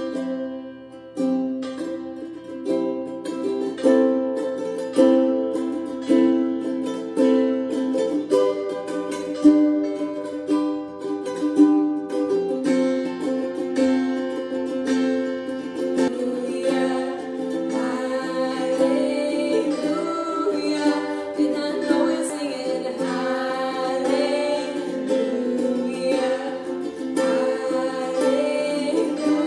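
Strummed chords on an acoustic string instrument, played as an instrumental intro; about halfway through, a voice starts singing along.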